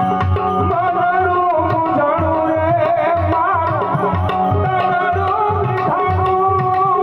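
Live devotional bhajan: a man singing a wavering melody over a steady harmonium, with an even tabla beat and small hand cymbals.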